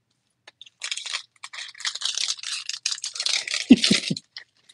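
Foil trading-card pack wrapper crinkling and tearing as it is ripped open by hand, with a few low knocks of handling near the end.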